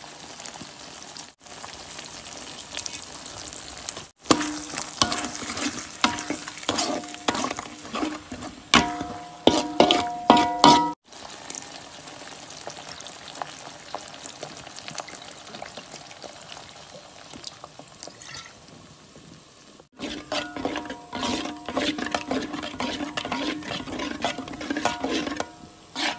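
Chili paste sizzling in a hot pan while a metal spoon scrapes and clinks against the pan, stirring it in two spells, the second starting about twenty seconds in.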